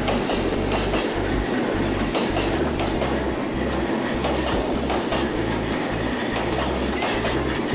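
Train passing close by: a steady rumble with the wheels clacking irregularly over the rail joints.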